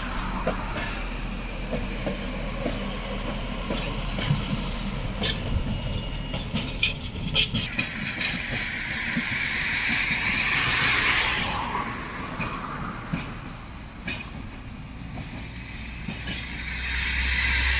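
Train rolling on the rails, with a run of sharp wheel clicks over rail joints and points and a steady low engine hum beneath.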